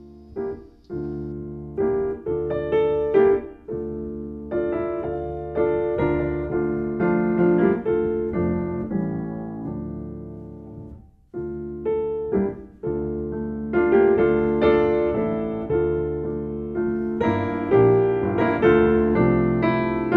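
Piano music: a melody over chords, each note struck and dying away, with a brief pause about halfway through before it starts again.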